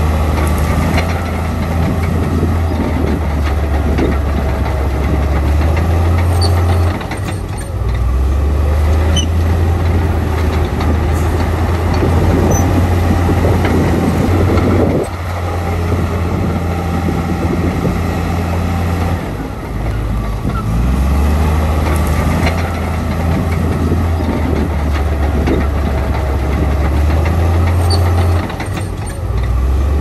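Heavy earthmoving machine's diesel engine running hard under load. It eases off briefly about four times, and there is one sharp knock about halfway through.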